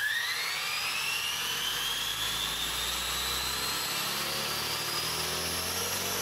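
Featherweight combat robot's weapon spinning up: its original brushless in-runner motor driving the heavy blade through an enlarged pulley, a high whine that climbs fast in pitch at first, then keeps rising slowly as the blade gains speed.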